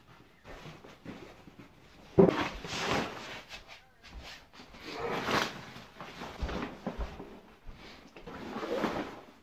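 A bulky packed ice-fishing tent in its wrapping rustles and bumps as it is handled and lifted. There are three rustling swishes, the first beginning with a sudden knock about two seconds in.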